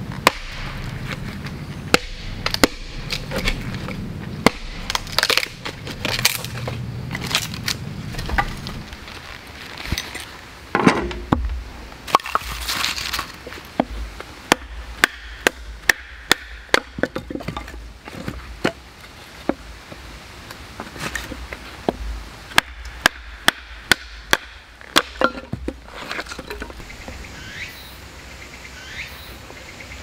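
A knife being batoned through a stick of firewood: a long series of sharp wooden knocks and splitting cracks, coming thick and fast through the middle.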